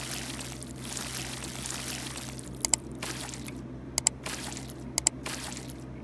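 Flux sizzling and hissing under a soldering iron tip as it melts the solder on a graphics card's power connector pins, coming in several spells with short breaks. Three sharp double clicks in the second half are the loudest sounds.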